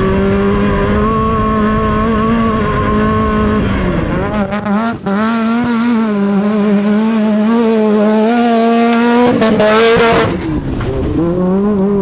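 Class 10 off-road race buggy engine running hard at high revs, its note holding fairly steady and dipping briefly in pitch twice, about four and a half seconds in and again near the end. There is a short burst of hiss just before the second dip.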